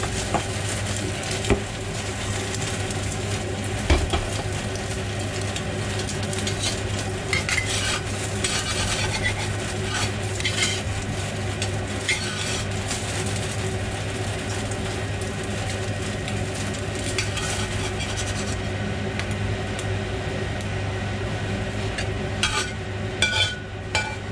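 An egg sizzling in a 5-ply stainless steel wok over a steady low hum. A metal wok spatula scrapes and taps against the pan several times in the middle, then gives a few sharper clinks near the end as the egg is lifted out.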